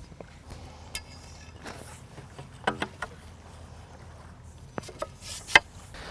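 Metal sailboat mast tubes being fitted together, giving a handful of short, sharp clinks and knocks, the loudest near the end.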